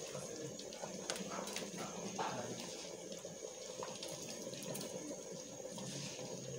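A pot of rice and beef in tomato sauce simmering on a gas stove, a steady bubbling hiss, with a few faint clicks in the first couple of seconds.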